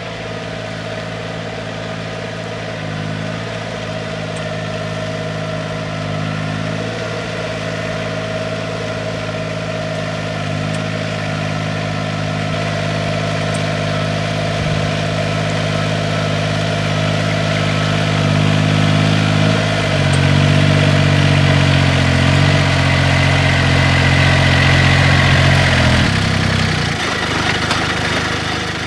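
The engine of a Yanmar GP10 ten-row riding rice transplanter runs steadily as the machine works through a flooded paddy, growing louder as it comes closer. Its note steps up and down a few times, then drops about three seconds before the end.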